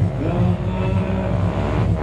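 Motorcycle engine revving up and down during a freestyle stunt ride, the pitch rising and falling.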